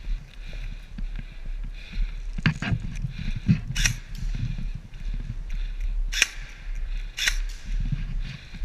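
Airsoft guns firing single shots: about five sharp pops spread over a few seconds, two close together near the start, over a steady low rumble.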